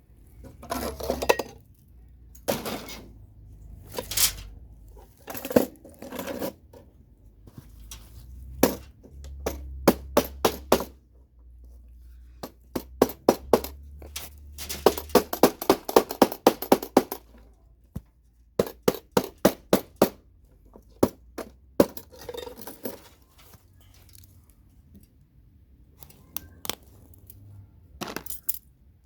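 Hammer blows knocking CPU sockets off computer motherboards: sharp knocks and clinks in short clusters, with a fast run of strikes, about five a second, in the middle.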